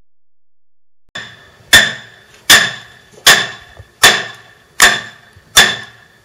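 A hammer striking steadily: after a light tap, six hard blows a little under a second apart, each with a short metallic ring, the first coming about a second and a half in.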